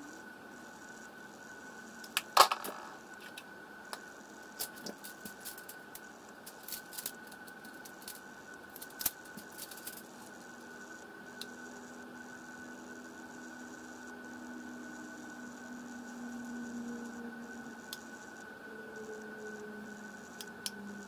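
Scattered small clicks and taps of makeup packaging and brushes being handled, the loudest a sharp click about two seconds in and a run of lighter ones over the next several seconds, over a steady faint high whine.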